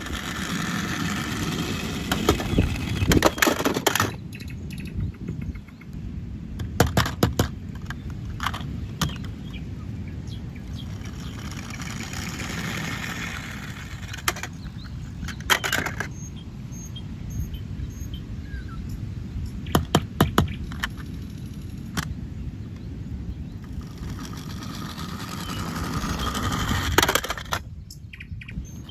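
Plastic toy vehicles and their packaging being handled: rustling with scattered sharp clicks and knocks, over steady low background noise.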